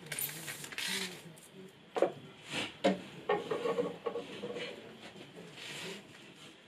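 Rustling handling noise, then two sharp knocks as a 6 mm brass tube is set down on a wooden workbench, followed by a brief ringing tone.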